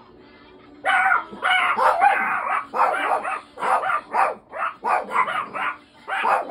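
Pet dog barking loudly and repeatedly, a rapid run of short barks at about two a second, starting about a second in.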